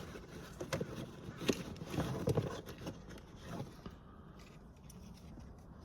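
Hands unpacking a mail package: irregular rustling, scraping and a few light knocks of packaging being handled for about four seconds, then quieter.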